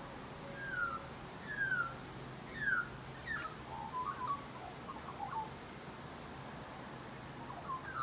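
Australian magpie singing: three clear whistled notes, each sliding down in pitch, about a second apart, then a run of lower, quicker warbling notes, and a few more notes near the end.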